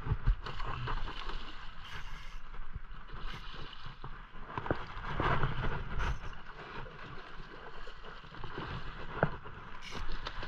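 Wind rumbling on a body-worn camera's microphone, with water lapping against shoreline rocks and scattered small clicks from handling a spinning rod and reel while reeling in and casting.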